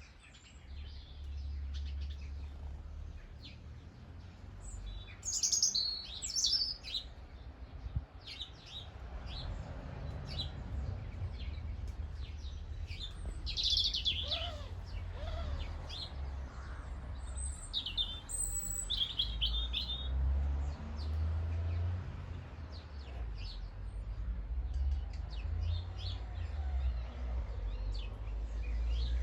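Small birds chirping in short, scattered calls, over a low, uneven rumble.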